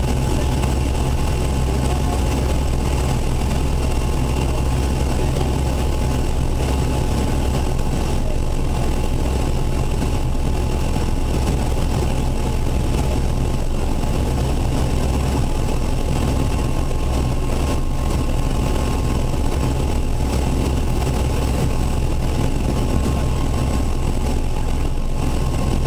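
Airbus Helicopters EC175's twin turboshaft engines and rotor running steadily on the ground, heard inside the cockpit: a deep, even hum with several fixed high turbine whine tones over a constant rush.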